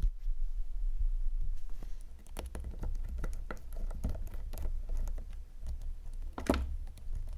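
Light scattered clicks and taps of small metal parts and a screwdriver as the diaphragm cover is worked off a Yamaha XJ750 carburetor, with one sharper click about six and a half seconds in, over a low steady hum.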